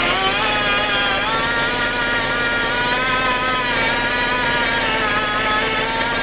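Handheld rotary buffer grinding the inside of a motorcycle tyre around a nail puncture, cleaning the rubber for a patch. The tool runs with a steady whine that rises and dips in pitch as it is pressed against the rubber.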